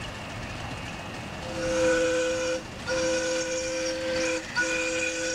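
Steam whistle of a ride-on live-steam miniature locomotive blowing three blasts, a chord of two or more notes, starting about a second and a half in; the third blast is still sounding at the end.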